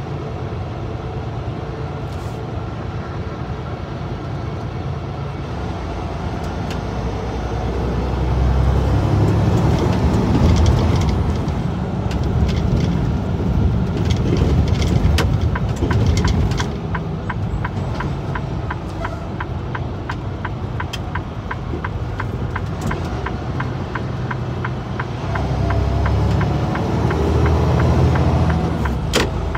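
Truck running down the road, heard from inside the cab: a steady engine and road rumble that swells louder twice, with a run of quick, evenly spaced ticks in the middle.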